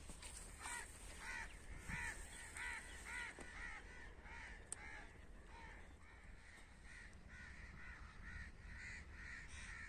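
Crows cawing faintly in a steady, evenly spaced series of short calls, about three a second, growing weaker in the second half.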